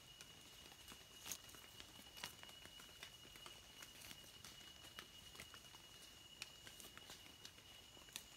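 Near silence: faint scattered clicks and small snaps as a knife cuts wild mushroom stems among dry leaf litter, over a steady high tone.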